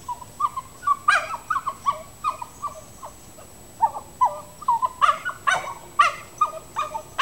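A dog giving a rapid string of short, high yips and whines, many of them dropping in pitch, growing louder and sharper in the last couple of seconds.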